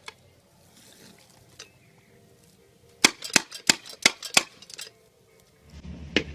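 A quick run of about five sharp cracks, beginning about three seconds in after a quiet stretch. A low steady hum starts near the end.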